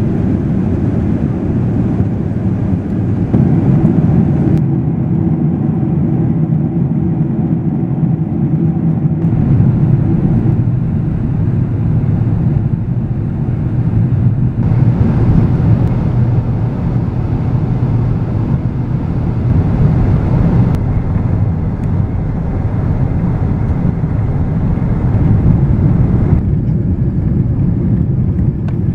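Steady low rumble of an Airbus A330's engines and airflow heard inside the passenger cabin during the descent on approach. The higher hiss drops away and comes back abruptly a few times.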